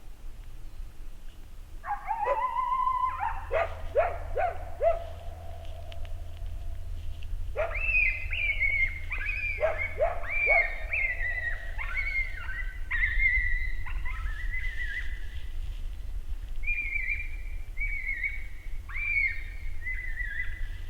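Coyote howls and yips: a wavering howl about two seconds in, then a long run of short yips and barks, each falling in pitch, coming about two a second.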